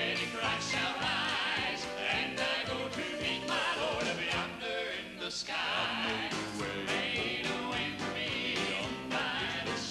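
Southern gospel male vocal quartet singing in harmony, backed by a live band with drums.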